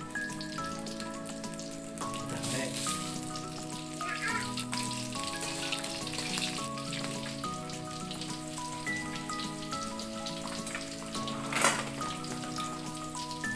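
Pieces of tongkol (mackerel tuna) sizzling as they fry in oil in a wok, with a short clatter near the end, over steady background music.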